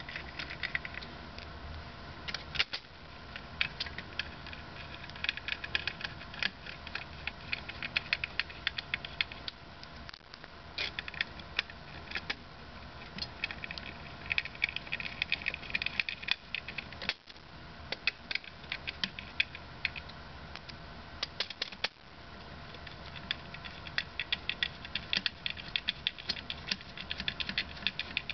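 A hand screwdriver clicks rapidly as small M3x10 screws are driven into a plastic front lens. The clicking comes in short runs of a second or two with brief pauses between them, as each screw is turned down in turn.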